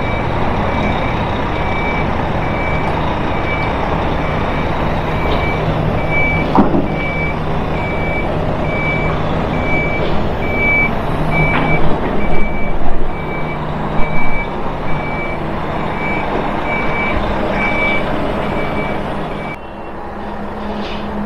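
A vehicle's reversing alarm beeping steadily, one high beep about once a second, over a running engine. A few clanks come through, and the beeping stops near the end.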